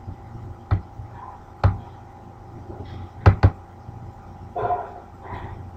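Computer mouse clicking: four sharp clicks, the last two a quick double-click, as objects are selected and dragged in schematic software, followed by two short soft noises near the end over a low steady hum.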